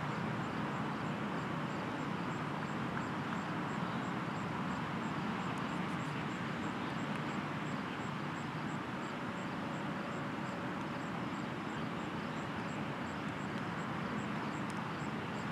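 Steady outdoor background noise with no clear events, and a faint high chirp repeating evenly every few tenths of a second.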